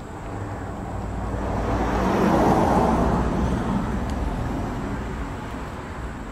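A road vehicle driving past, growing louder to a peak about two and a half seconds in and then fading away.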